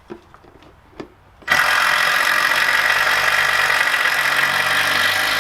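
A few light knocks, then about a second and a half in a power screwdriver starts up and runs steadily at full speed, driving a long screw into timber.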